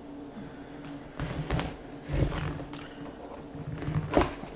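Packing tape on a cardboard box being slit and scraped open with a small hand tool: about five short scratchy strokes, the one near the end the loudest.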